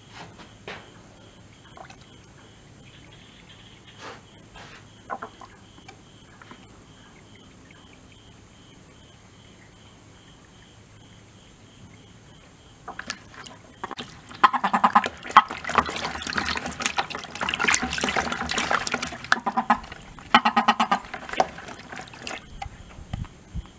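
Toads scrambling and splashing in shallow water in a plastic bucket. The splashing starts about halfway through and runs for some nine seconds, loud and busy, over a faint steady chirping of crickets.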